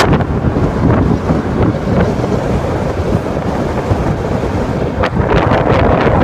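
Strong wind buffeting the microphone: a loud, continuous rumble, growing louder and harsher about five seconds in.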